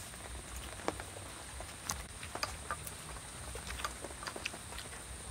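Metal spoons clinking and scraping against glass and ceramic bowls during a meal: scattered light sharp ticks at irregular intervals, over a steady faint high-pitched tone.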